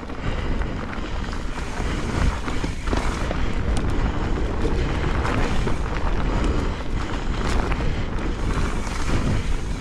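Mountain bike riding down a wet, muddy trail, heard through a bike-mounted or rider-worn camera: wind rushing over the microphone with tyre and bike rattle, a steady rumbling hiss with scattered knocks.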